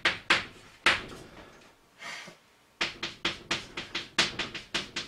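Chalk writing on a blackboard: sharp taps and short scrapes as characters are written stroke by stroke. Two taps near the start, a pause about a second in, then a quick run of strokes from about three seconds in.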